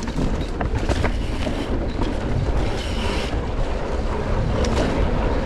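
Wind buffeting the microphone over the rumble of a mountain bike's tyres on a dirt singletrack, with scattered clicks and knocks from the bike rattling over the trail.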